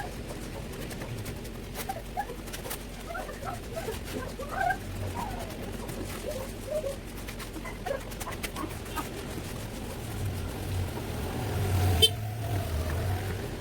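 A dog making scattered short, high whines and whimpers over a steady low rumble, with a sharp click about twelve seconds in.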